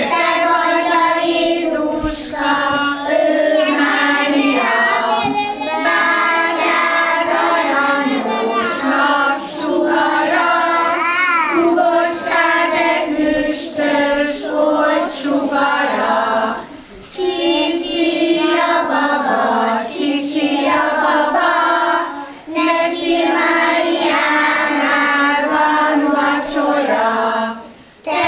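A group of young children singing together in phrases, with short pauses between lines at about 17 and 22 seconds in and near the end.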